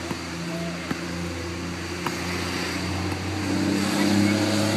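A motor engine running steadily with a low, even hum, growing louder about three and a half seconds in.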